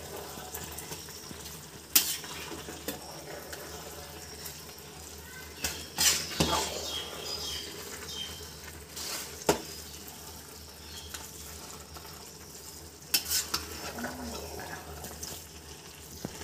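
Metal ladle stirring rice in a large aluminium pot, scraping through the grains and knocking sharply against the pot about four times, over the soft sizzle of the biryani cooking as its last water is absorbed.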